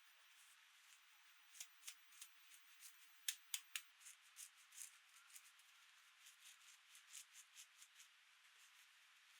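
Faint, irregular light clicks and taps from small hard objects being handled, a few a second, with three sharper clicks in quick succession about three seconds in.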